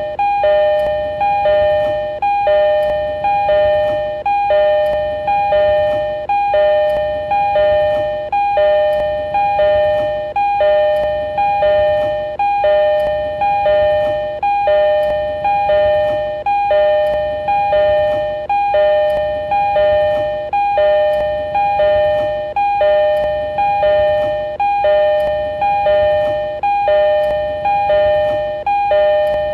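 JR East E231-series train door chime: a two-note high-low electronic chime repeating over and over, about once a second.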